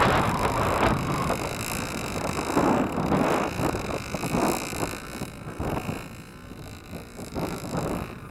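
Small 8cc gas engine of an RC model plane running, its wavering buzz fading out after about five seconds, under gusty wind buffeting the microphone.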